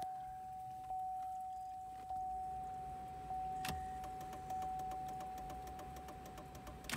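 Dashboard warning chime sounding a steady tone that is restruck about every 1.2 s. After a click about halfway through, the flasher relay starts ticking fast: the hyperflash of a stock flasher driving LED bulbs.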